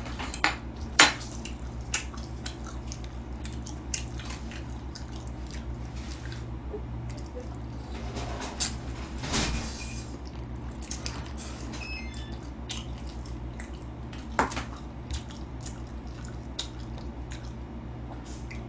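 Chopsticks and a spoon clicking against bowls and dishes during a meal: scattered short clicks, the sharpest about a second in, over a steady low hum.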